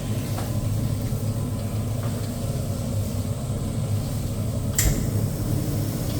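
Automatic stir-fry machine running with meat in its pan: a steady low hum, with one sharp clank about five seconds in.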